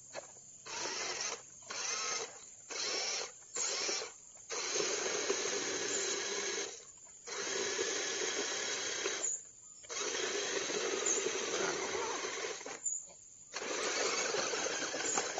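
Electric drive motor and gearbox of a radio-controlled 4x4 rock crawler whining in throttle bursts: several short stop-start bursts in the first four seconds, then longer runs of two to three seconds each, cutting off abruptly between them.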